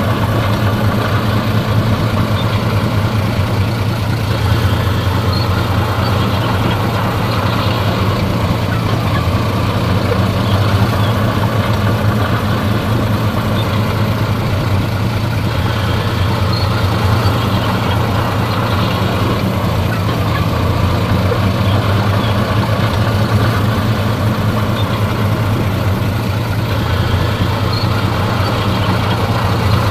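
Heavy diesel engine of earthmoving machinery running steadily, a constant low drone with no clear revving or stops.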